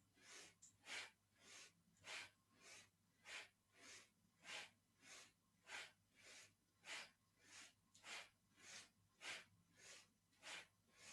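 Faint, quick rhythmic breathing, in and out about twice a second, paced by a seated Kundalini yoga spinal twist: a breath in on each turn to the left, a breath out on each turn to the right.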